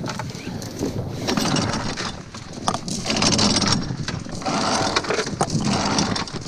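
Anchor chain being hauled in by hand over the yacht's bow roller, its steel links clanking and rattling in quick, irregular knocks until the anchor breaks free of the seabed. Wind noise on the microphone underneath.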